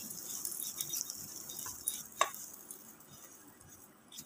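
Hot tadka (tempering of fried urad dal, mustard seeds and curry leaves in oil) being tipped from a small kadhai onto mashed potatoes in a steel bowl. A faint crackle fades away, with a few light ticks of the pan and one clearer tick about two seconds in.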